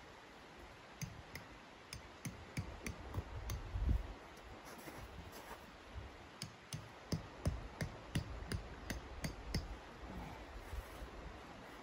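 Light clicks and taps from pegging down the bottom edge of a tent, coming a few a second in irregular runs, with one dull thump about four seconds in.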